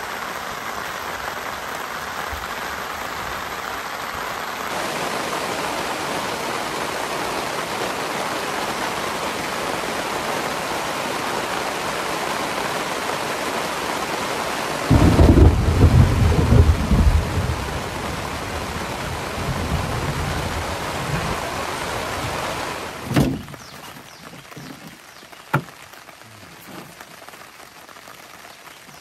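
Heavy rain falling steadily, with a loud, deep rumble of thunder about halfway through that lasts two or three seconds. Near the end the rain noise drops away suddenly to a much quieter patter with a few sharp ticks.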